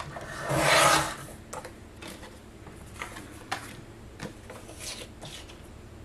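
Sliding paper trimmer's cutting head drawn along its rail, the blade rasping through black cardstock in one stroke about a second long, followed by a few light clicks and rubs.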